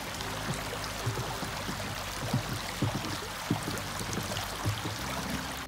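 A small brook running over rocks: a steady, even rush of water, with short low knocks scattered through it.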